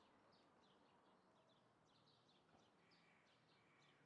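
Faint birdsong over near silence: short, high, falling chirps repeated about three times a second.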